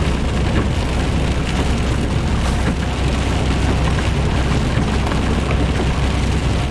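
Steady low rumble and hiss of a vehicle driving on a rain-soaked road, heard from inside the cab, with rain on the windscreen and spray from the wet tarmac.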